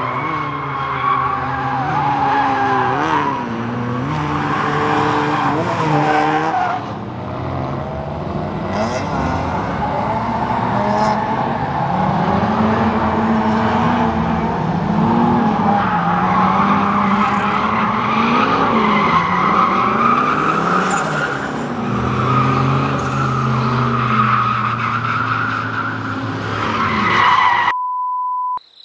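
Drift pickup truck's engine revving up and down as it slides through a cone course, with tyres squealing on the asphalt. Near the end the sound cuts off abruptly to a steady test-tone beep lasting under a second.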